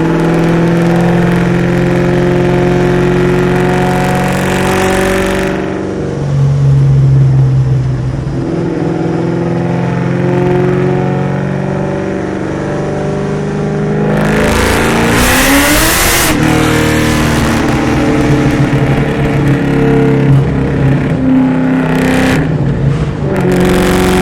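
Cammed, Whipple-supercharged Ford SVT Cobra 4.6-litre DOHC V8 through Kooks headers and a Borla ATAK exhaust, heard inside the cabin while driving: a steady loud engine drone at cruise, then about two-thirds through a hard acceleration where the pitch climbs sharply under a loud rush before dropping back.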